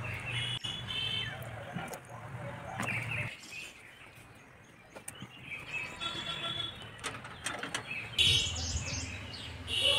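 Birds chirping in short repeated calls over a low background rumble; the sound cuts off abruptly about three seconds in and picks up again a couple of seconds later.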